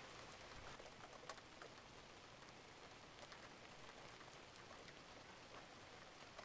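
Near silence: a faint steady hiss with a few scattered light ticks.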